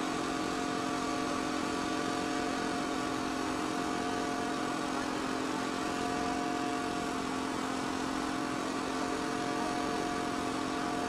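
Aerobatic propeller aircraft's piston engine running at a steady, unchanging pitch.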